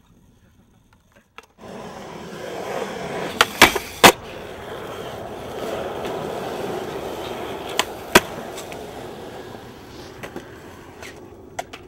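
Skateboard wheels rolling on smooth concrete, starting about a second and a half in, swelling and then fading away. Three sharp clacks of the board come at about three and a half to four seconds, and two more at about eight seconds.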